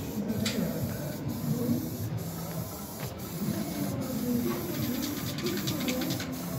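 Aerosol spray-paint cans hissing as paint is sprayed onto a wall, with a fast run of rattling clicks near the end.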